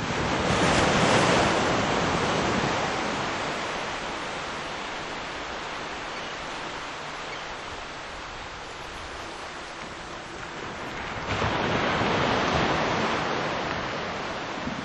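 Wind rushing over the microphone, with water noise beneath it, swelling loudest about a second in and again near the end.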